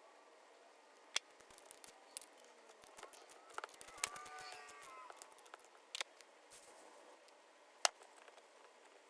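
Hand tools and small metal parts clicking and knocking, faint, with a rapid run of small clicks about three seconds in and a short squeak just after.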